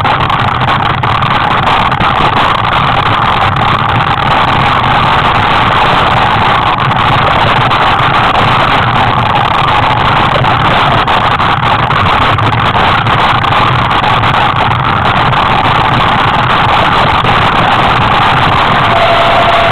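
Wind rushing steadily over a helmet camera's microphone, a loud, even rush with no break.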